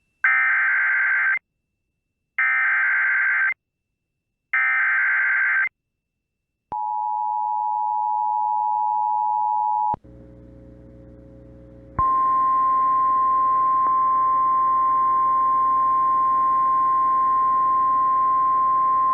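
Emergency Alert System SAME header: three buzzing bursts of digital data, each about a second long and a second apart, followed by the steady two-tone EAS attention signal for about three seconds. After a brief stretch of faint radio hiss, the NOAA Weather Radio 1050 Hz warning alarm tone comes in over static about twelve seconds in and holds steady, signalling that a warning is about to be read.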